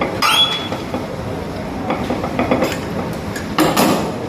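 Irregular knocks and clatter, with a short squeak that slides up near the start, over a steady low hum.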